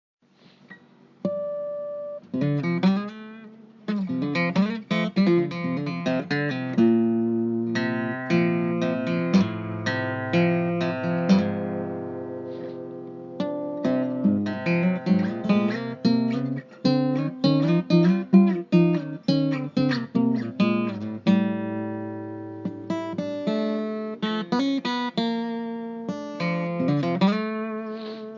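Solo acoustic guitar playing an instrumental piece: a single ringing note about a second in, then plucked notes and strummed chords, ending on chords left to ring and die away.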